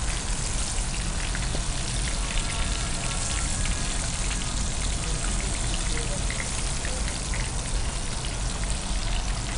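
Prawn pakoda balls deep-frying in hot oil: a steady, dense sizzle and crackle.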